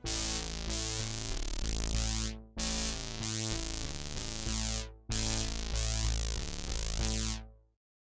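Electronic background music on a synthesizer with a heavy bass. It breaks off briefly twice, about two and a half and five seconds in, then fades out to silence just before the end.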